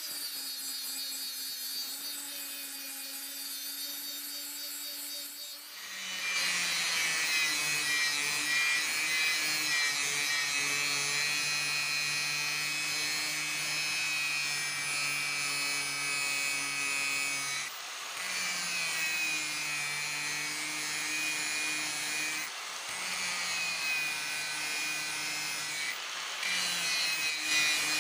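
Angle grinder with an abrasive disc grinding a steel knife blank: a steady motor whine under the harsh hiss of the disc on steel. It gets much louder about six seconds in, then drops out briefly three times, and each time it comes back the whine settles a little lower.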